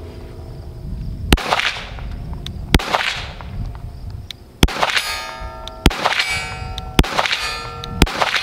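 Six shots from a Smith & Wesson M&P 22 Magnum pistol firing 40-grain Winchester .22 WMR rounds, roughly one a second with a slightly longer pause after the second. The last four shots are each followed by a ringing clang of struck steel targets.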